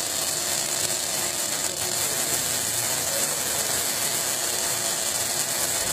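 Robotic welding torch holding a continuous electric arc on a steel plate: a steady, dense crackling hiss that does not pause.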